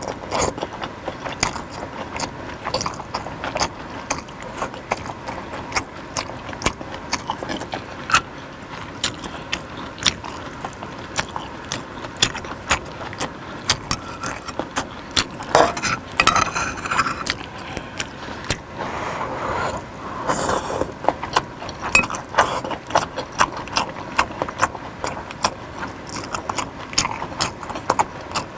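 Close-miked eating of beef and vegetable suki soup: chewing with many sharp, irregular wet mouth clicks, and a few louder slurping or crunching bursts.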